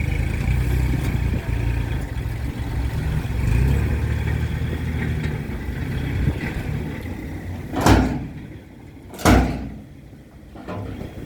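Heavy construction machine engine running with a steady low rumble, then two loud bangs about a second and a half apart near the end, after which the engine sounds quieter.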